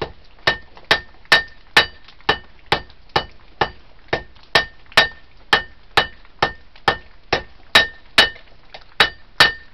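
Hand hammer striking hot 1084 high-carbon steel on an anvil, steady blows a little over two a second, each with a short metallic ring. The blows are drawing out the knife blade's cutting edge.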